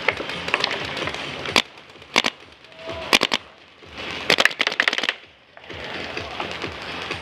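Paintball markers firing in quick bursts of sharp pops: a single shot, then a pair, then three, then a rapid string of about six shots around four to five seconds in.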